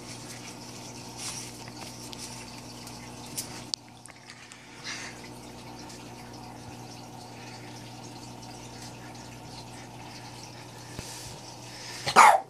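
Aquarium filter running: water trickling over a steady low motor hum. Near the end a Boston terrier barks loudly.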